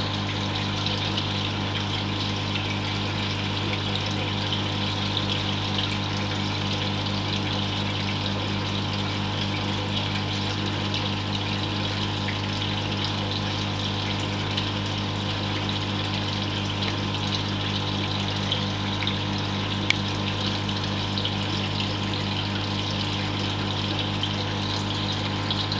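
Reef aquarium equipment running: a steady hum from the tank's water pumps with water trickling and splashing over it. One small click about three-quarters of the way through.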